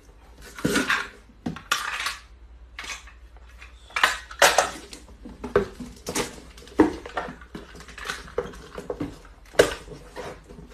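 Packing tape being pulled off a hand-held tape dispenser and pressed onto small cardboard boxes: irregular rasps of tape unrolling mixed with cardboard knocks and handling.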